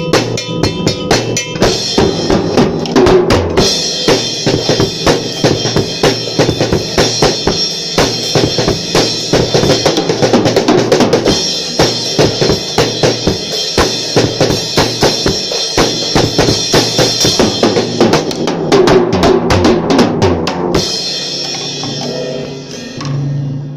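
Drum kit played at a fast, steady beat: bass drum and snare strokes with cymbals ringing over much of it. The playing winds down and stops a couple of seconds before the end.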